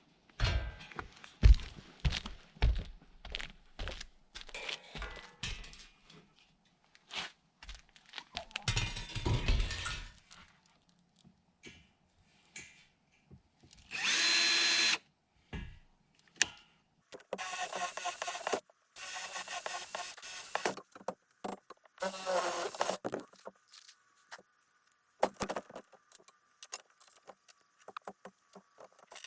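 Knocks and clatter of metal being handled, then several short bursts of a power drill running, as when driving screws.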